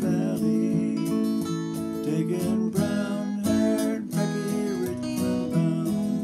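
Acoustic guitar being flatpicked in a bluegrass style, an instrumental passage of picked bass notes and strummed chords in a steady rhythm, with no singing.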